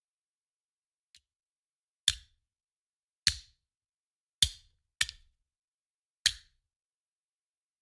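Handgun gunshot sound effect: five single sharp shots, spaced about a second apart, with two in quicker succession near the middle. Each one dies away fast into dead silence. A faint click comes about a second in.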